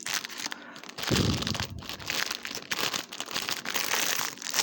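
Packaging crinkling and rustling as it is handled and opened, in irregular crackles, with a soft thump about a second in.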